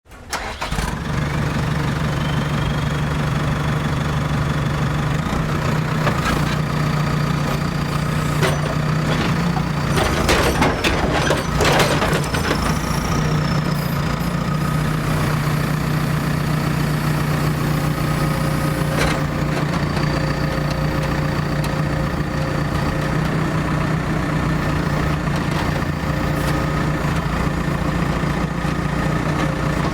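Heavy construction machinery engine running steadily, with scattered clanks and knocks, clustered about ten to twelve seconds in.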